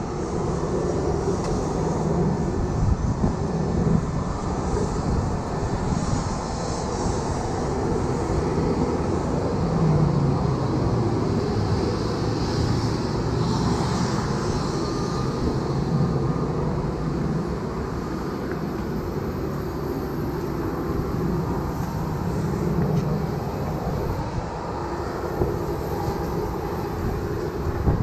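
Boeing 737-800 cabin noise: a steady rumble of its CFM56 engines and airframe, with a faint high whine that rises about two-thirds of the way in and then holds.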